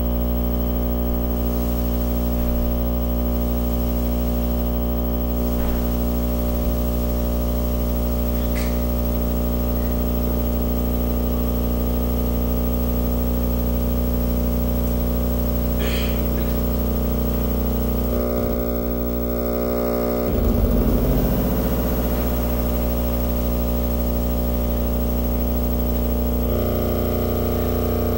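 Electronic noise drone: many sustained tones layered over a deep steady hum, from a live video-feedback performance rig. About two-thirds of the way through a stuttering low throb swells briefly, and near the end the tones shift to a new chord.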